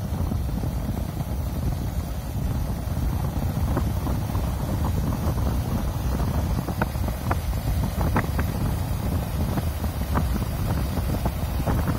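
Wind blasting across the microphone of a moving vehicle: a dense, steady low rumble with occasional short crackles.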